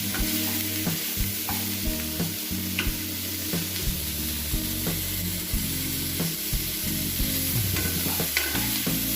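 Diced potatoes sizzling in hot mustard oil with frying onion and green chili. A spatula stirring them clicks against the pan every second or so.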